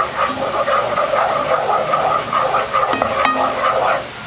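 Soy sauce, sugar and garlic sauce bubbling and sizzling in a pot as it is stirred with a wooden spatula: a steady rushing noise with a fast pulse. It cuts off sharply just before the end.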